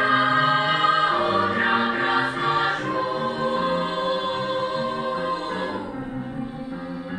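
A choir singing a song in harmony, the voices thinning out and fading about six seconds in as the phrase ends.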